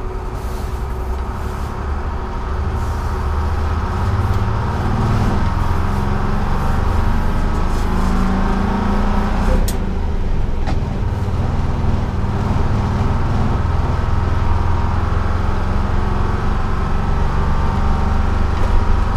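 The Detroit Diesel 6-71 two-stroke diesel of a 1948 GMC Silversides bus runs under way, heard from the driver's cab together with road noise. It grows louder about four seconds in, and two sharp clicks come a second apart around the middle.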